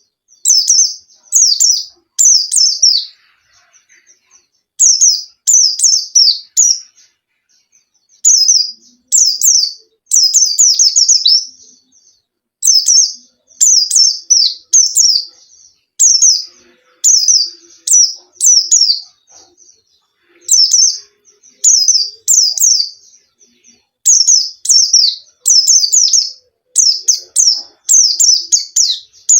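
Pleci (Zosterops white-eye) singing vigorously. It gives short bursts of quick, high, downward-sweeping chirps, one phrase after another with brief pauses between.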